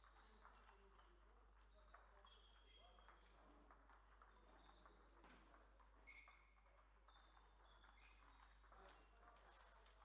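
Faint table tennis play: the celluloid ball clicking off the table and bats in an irregular series of light knocks, with short high squeaks now and then.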